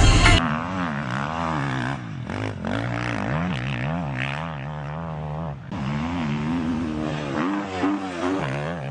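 Motocross bike engine revving up and down as the rider works through sandy ruts and over a jump, its pitch rising and falling every second or so with short dips as the throttle is closed.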